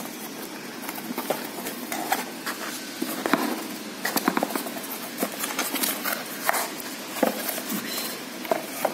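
Cardboard box flaps and a cardboard packing insert rustling and scraping as they are handled and pulled apart, with irregular small knocks and taps.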